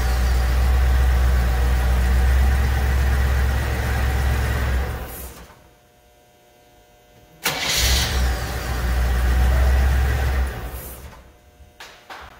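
Motorhome's gasoline engine test-started on a newly fitted starter: it runs steadily and is shut off about five seconds in, then the starter cranks it briefly about seven seconds in and it catches at once, runs a few seconds and is shut off again. The quick starts show the new starter working.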